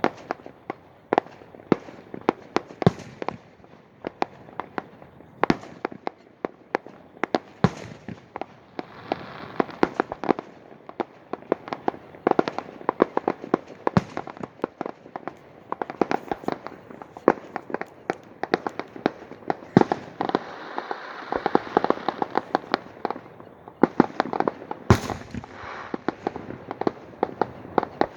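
Fireworks going off: a rapid, irregular run of sharp bangs and crackles. It thickens into a dense crackling volley about twenty seconds in, and one sharp, loud bang comes near the end.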